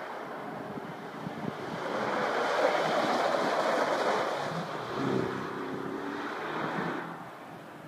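BMW X5 SUV driving past on a coned handling course: engine and tyre noise swell to their loudest about three seconds in as it comes close, then fade as it pulls away.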